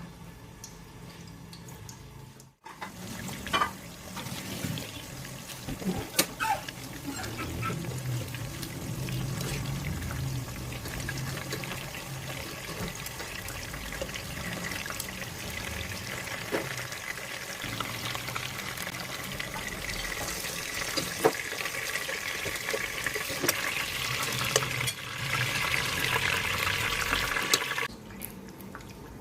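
Food sizzling as it fries in a pan, with occasional clinks of a utensil; it starts after a brief break about three seconds in and cuts off just before the end.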